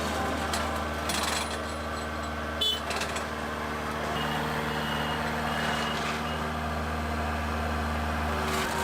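Heavy machine's engine running steadily with a constant low hum. There is a brief click a little under three seconds in, and a few short high beeps partway through.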